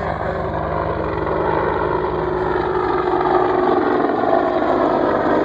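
AH-64 Apache helicopter flying close by: a steady, rapid beat from its main rotor over engine noise, growing louder over the first couple of seconds and then holding.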